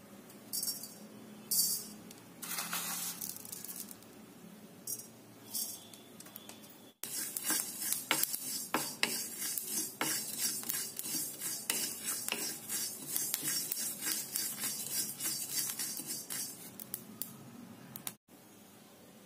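Cumin seeds dry-roasting in an iron wok, stirred and scraped with a wooden spatula: a dense run of small clicks and scrapes from about seven seconds in until near the end. Before that, a few short rattling hisses as the seeds go into the pan.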